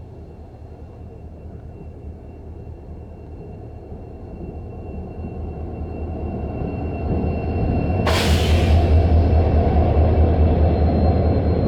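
WDP4B EMD diesel locomotive drawing closer, its low engine rumble swelling steadily, with a thin steady high screech beneath it. About eight seconds in, the locomotive sneezes: a sudden sharp hiss of air from the compressor's air-dryer purge, fading over about a second, while the engine rumble is at its loudest as the locomotive comes close.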